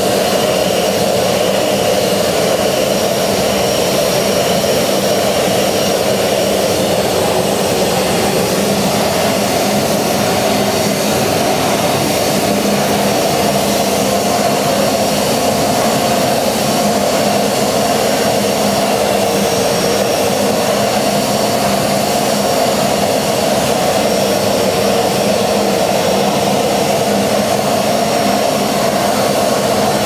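Kärcher WD 2.250 wet-and-dry vacuum cleaner, with a 1200 W motor, running steadily while its floor nozzle sucks sawdust off a thin carpet.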